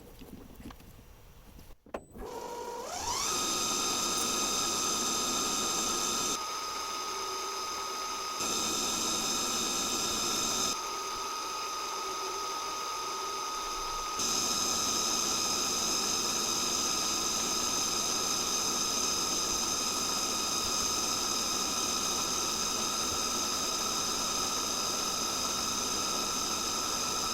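Metal lathe starting up, its motor whine rising quickly to speed, then running steadily with a high whine. The rougher running noise under the whine drops away and comes back a few times in the first half, as if a cut is engaging.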